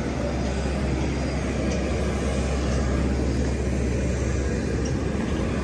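Steady aircraft noise on an airport apron: a constant low rumble with a hiss over it.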